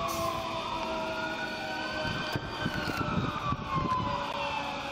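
Emergency vehicle sirens on a slow wail. One rises in pitch for a couple of seconds and then falls away, with other siren tones overlapping underneath.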